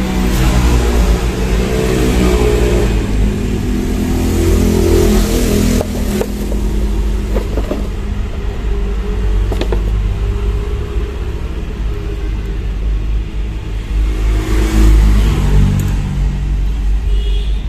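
Road traffic: a steady engine rumble, with vehicles passing that swell and fade, one at the start and one about three-quarters of the way through. A couple of sharp clicks sound in between.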